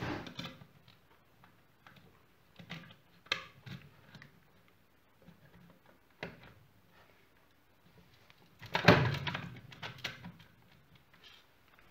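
Handling noise of wiring and plastic servo connectors being worked into a model submarine's electronics: scattered light clicks and rustles, with a longer, louder burst of handling noise about nine seconds in.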